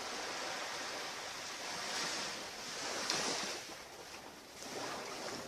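Ocean surf washing onto a beach, swelling and falling back a few times.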